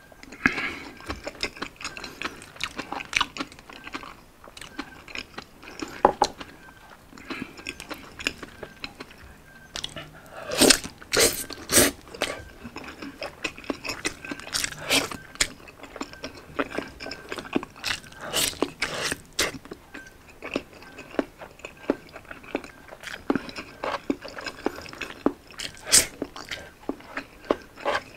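Close-miked biting and chewing of a slab of Spam luncheon meat dipped in sauce: many short, sharp wet mouth clicks, loudest about ten to twelve seconds in.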